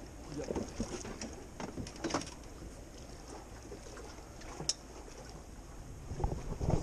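Steady wind and water noise around a small fishing boat, with faint voices and a few light knocks and clicks.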